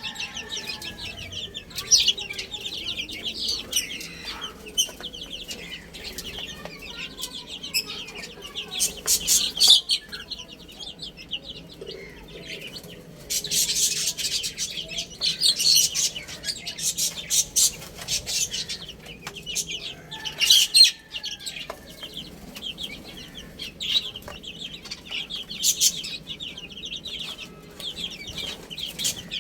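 Many baby chicks chirping in high, rapid peeps with no break, densest about halfway through, with an occasional lower cluck.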